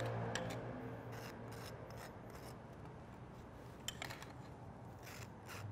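Knife spreading mayonnaise over toasted potato bun halves: faint, soft scraping strokes, with a sharper scrape of the knife in the mayo ramekin a little before four seconds in.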